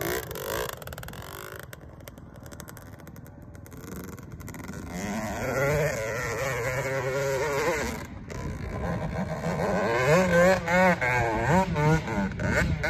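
A 2002 Kawasaki KX125 125cc single-cylinder two-stroke motocross bike riding away and then climbing a hill. Its engine sound drops away for a few seconds, then comes back with revs rising and falling as the throttle is worked, with a short break near the middle and hard wavering revving in the last few seconds.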